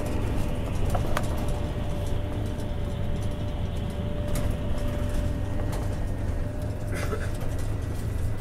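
Cabin noise aboard a moving Marcopolo Paradiso 1800 DD double-decker coach on a Scania chassis: a steady low engine and road drone with a faint, steady whine, and a few light clicks.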